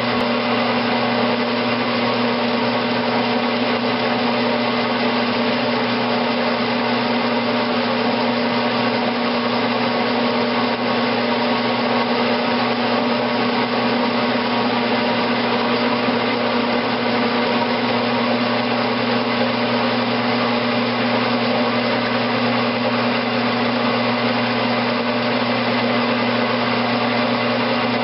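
Grizzly G9972Z bench metal lathe running at a steady speed, a constant motor-and-gearbox hum, while a tool bit takes a turning cut along a 1018 steel valve stem to bring it down to press-fit size.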